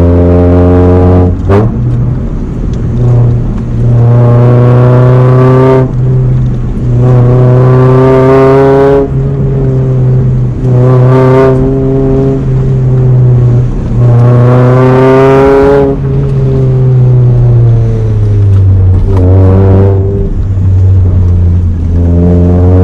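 Honda Prelude with a swapped-in H23 2.3-litre four-cylinder engine accelerating hard, its pitch climbing in runs with a drop at each gear change. It eases off and falls in pitch past the middle, then pulls again near the end. There is a sharp snap about a second and a half in.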